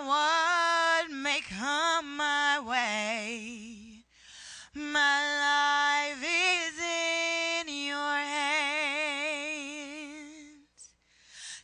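A woman singing a gospel song solo into a microphone, unaccompanied. She holds two long notes, each ending in a wide vibrato, with a short breath between them about four seconds in, and the second note fades out near the end.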